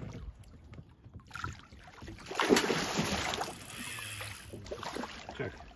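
Water splashing as a big hooked catfish thrashes at the surface. The splashing builds from about a second in and is loudest for about a second near the middle.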